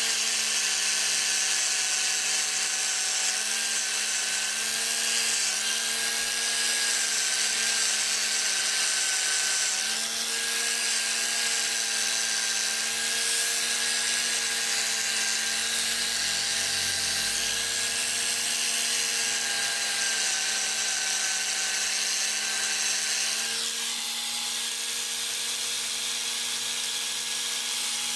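Bosch angle grinder with a foam polishing pad running at a steady pitch, buffing a steel scissor blade, with a hiss from the pad on the metal. It gets slightly quieter near the end.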